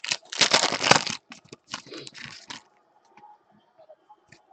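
A trading-card pack's wrapper being torn open and crinkled: a loud tearing crinkle in the first second, a softer one about two seconds in, then only faint handling clicks.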